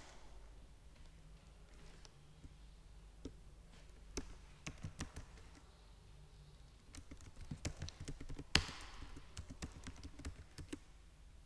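Typing on a computer keyboard: irregular runs of key clicks, sparse at first and busier in the second half, with one louder keystroke about eight and a half seconds in.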